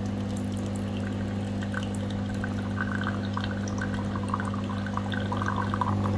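Monarchy single-serve capsule coffee maker brewing: the machine hums steadily while a thin stream of coffee pours and splashes into a glass, with gurgling and bubbling that gets busier after a couple of seconds.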